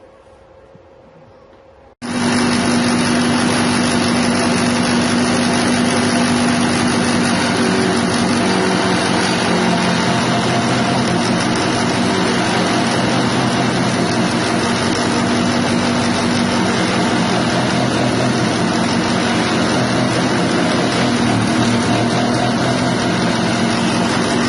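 Multipurpose grass chopper machine driven by a 6.5 hp petrol engine, running steadily at speed. It comes in suddenly about two seconds in, loud and even, with a steady hum under dense mechanical noise.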